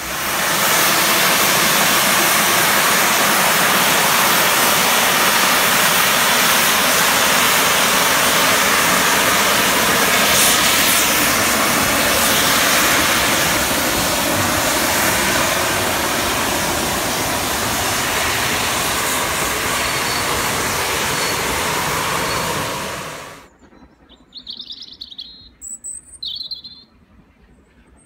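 A steam locomotive hissing loudly, a steady rush of escaping steam with no clear beat, which cuts off abruptly about 23 seconds in. After it, a few short bird chirps.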